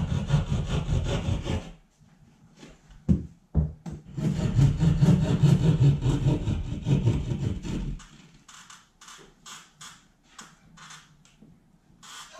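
Hand drywall jab saw cutting an opening in a drywall ceiling for a power and HDMI pass-through, in rapid back-and-forth strokes. There is a burst of about two seconds, a couple of sharp knocks, then a longer burst of about four seconds, then slower, lighter strokes near the end.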